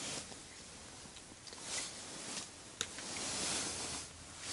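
Faint rustling from handling gear and clothing, in several soft swells, with one sharp click near the middle.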